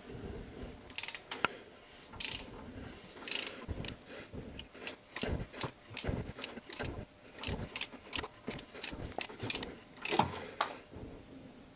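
Socket ratchet clicking in uneven runs as the crankshaft of a VAZ 8-valve engine is turned over by hand, rotating a freshly fitted timing belt to check the timing marks. The clicks begin about a second in and stop shortly before the end.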